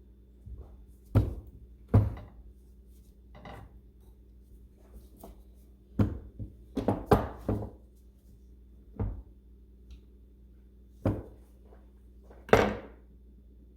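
Hand tools knocking and clinking while working at stuck screws: a dozen or so short, sharp knocks at uneven intervals, bunched together around the middle, with the loudest near the end, over a low steady hum.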